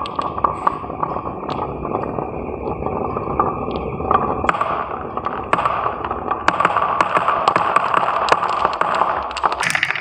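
Glass marbles rolling down a wooden wavy-groove slope: a continuous rolling rumble with many sharp clicks as they knock together. From about halfway the clicks grow busier as the marbles drop off the end into a plastic bowl.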